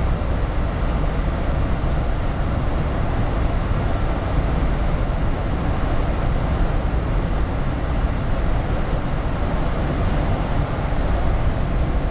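Steady outdoor city background noise, an even low rumble with hiss above it and no distinct events.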